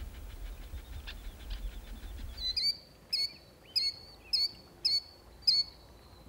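A bird calling over and over: a short, sharp, high note about every 0.6 seconds, starting about two and a half seconds in. Before the calls start there is a low rumble.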